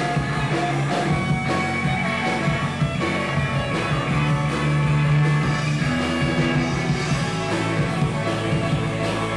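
Rock band playing live: electric guitars, bass guitar and drum kit in an instrumental passage without singing, loud and dense, with a steady drum beat.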